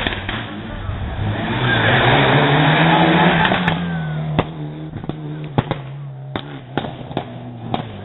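Mitsubishi Lancer rally car's turbocharged four-cylinder engine at high revs as it passes, its pitch rising and then falling back. As it moves away, the engine is quieter, with a string of sharp pops.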